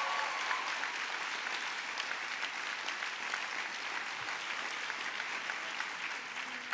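A large crowd of graduates applauding, many hands clapping in a dense, even patter that tapers off near the end.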